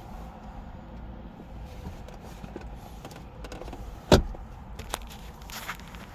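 A single sharp, loud thump about four seconds in, followed by a few lighter clicks, over a steady low rumble.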